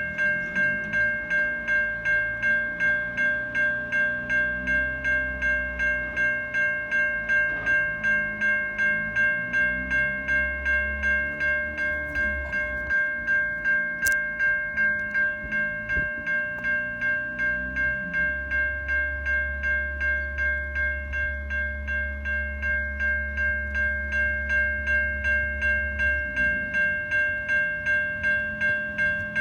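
Level crossing's electronic bells, older-style Safetran Type 3, dinging in an even, steady rhythm about twice a second. Underneath them a train passes with a low rumble that shifts in pitch.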